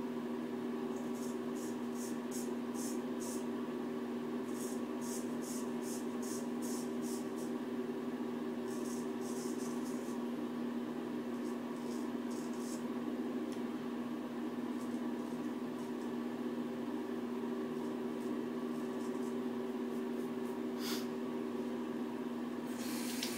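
Straight razor scraping through lathered stubble in quick short strokes, about three a second, in several bursts, over a steady electrical hum. Near the end a tap starts running.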